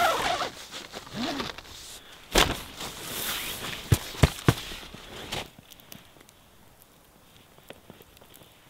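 A person shuffling into a tent on snow: fabric and gear rustling, with a few sharp knocks about four seconds in. About five and a half seconds in this gives way to a quiet campfire with faint, scattered crackles.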